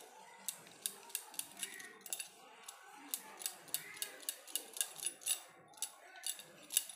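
Wire whisk beating a thick wheat-flour and semolina batter in a stainless steel bowl: the wires click sharply against the bowl about three times a second in uneven runs, over a soft wet stirring sound.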